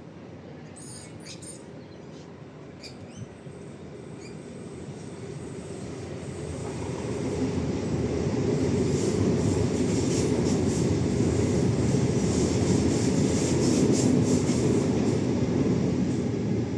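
Suburban train approaching and passing, its wheel and rail noise building over the first half and staying loud through the rest.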